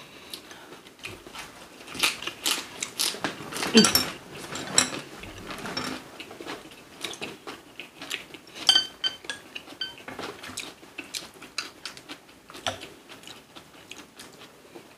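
Cutlery clicking and clinking against dishes at the table, with some chewing. About nine seconds in, one clink rings briefly.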